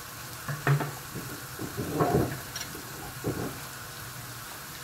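Onion-and-tomato sofrito sizzling as it fries in a stainless steel pot, with three short clatters of utensil or pot handling.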